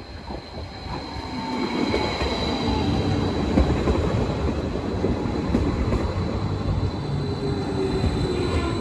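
Stadler FLIRT electric multiple unit approaching and rolling past close by: wheels running on the rails with a dense rumble and rattle, a steady high whine above it, and some wheel squeal. It grows louder over the first two seconds, then stays loud as the cars go by.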